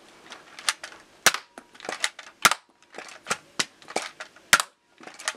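Nerf Zombie Strike HammerShot blaster being worked: a run of sharp plastic clicks and snaps from the hammer being pulled back to prime and the plunger firing darts, the loudest snaps about a second apart.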